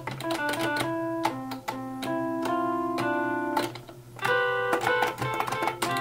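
Notes from a software instrument, played live by pressing the buttons of an eight-button arcade MIDI controller. There are single notes and overlapping pairs in an uneven tune, some held for about a second, with sharp clicks from the arcade buttons as they are pressed. The notes show the controller is sending MIDI correctly.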